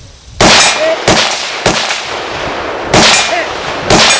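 AR-15 rifle (.223/5.56) firing at a steel silhouette target: five sharp reports in about three and a half seconds, unevenly spaced, three much louder than the other two, some followed by a short metallic clang of hits on the steel.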